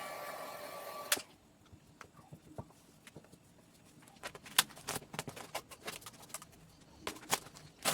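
A steady whirring sound that stops abruptly about a second in, followed by scattered sharp clicks and knocks.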